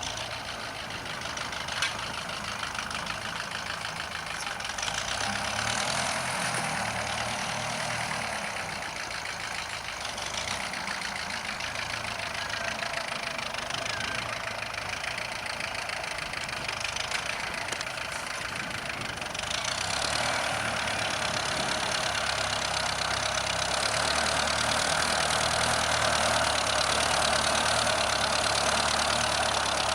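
Ferguson TEF tractor's four-cylinder diesel engine running steadily, growing louder about two-thirds of the way through.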